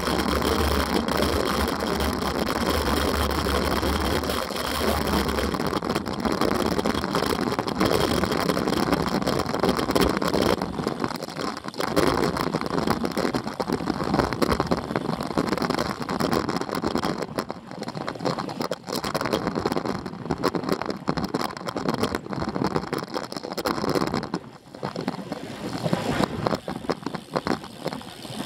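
Wind rushing and buffeting on the microphone of a camera riding along on a road bike descending at speed. A low steady hum runs under it for the first five seconds or so, and the buffeting turns choppier from about ten seconds in.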